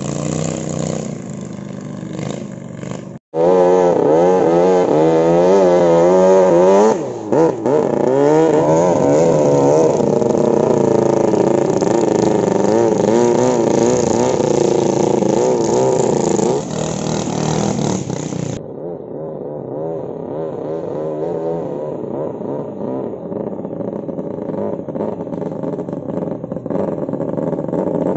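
Thai longtail racing boats running at speed, the engines loud with a pitch that keeps rising and falling as they rev. There is a brief break about three seconds in. From about eighteen seconds the engine sound is quieter and more distant.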